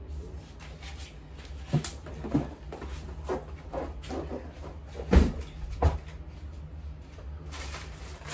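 Cardboard diaper boxes and plastic-wrapped diaper packs being handled and set down on a stack: several dull thumps, the loudest a little past five seconds in, over a steady low room hum.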